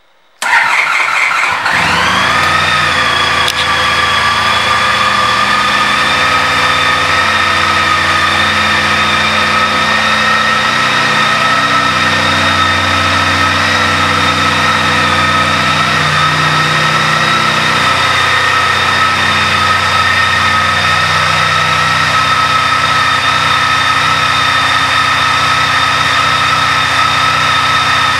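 Honda CTX1300's V4 engine starting up, catching about half a second in. Its revs settle within a couple of seconds into a steady idle.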